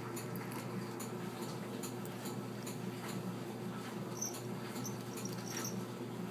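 A cat clawing and tugging at a bath towel on a tile floor: faint scattered scratches and clicks over a steady low hum.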